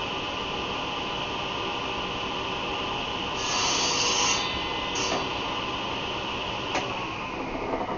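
Woodworking power tool running steadily while nibbling a shallow dado in a piece of wood, louder as it cuts for about a second near the middle. Two sharp knocks follow, and the machine begins to wind down near the end.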